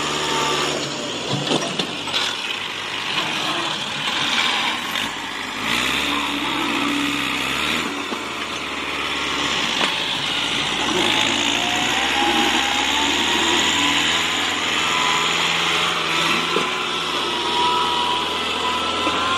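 Massey Ferguson 385 tractor's four-cylinder diesel engine running under load, its speed rising and falling in the first half, then holding steady.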